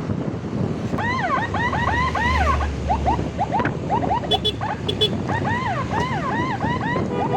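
Electronic emergency siren in a fast yelp, its pitch sweeping up and down several times a second, starting about a second in, over wind noise on the microphone of a moving motorbike.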